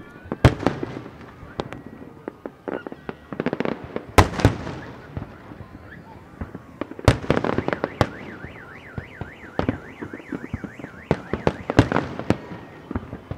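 Fireworks bursting in an irregular series of sharp bangs and crackles, the loudest a few seconds in and again about seven seconds in. From about eight seconds in, a car alarm warbles up and down in pitch for several seconds over the bangs.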